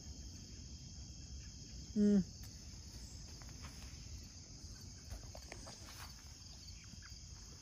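Steady high-pitched chorus of crickets, with one short hummed voice sound about two seconds in and faint low rumble.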